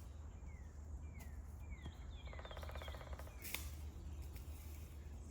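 Birds calling outdoors: a series of short, falling whistled chirps, with higher chirps and a rapid buzzy trill about halfway through. A couple of faint clicks can also be heard.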